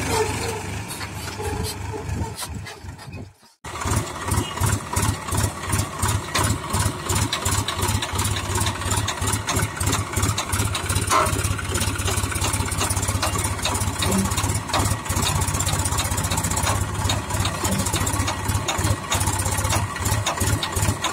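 Massey Ferguson 5245 DI three-cylinder diesel tractor engine running under load while pulling a loaded trolley, with an even, rapid pulsing beat. The sound drops out briefly about three and a half seconds in, then resumes.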